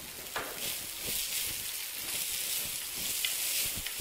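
Chopped onion sizzling in hot oil in a clay pot for a tempering, the hiss growing louder about half a second in. A wooden spatula stirs it, with small scrapes and taps against the pot.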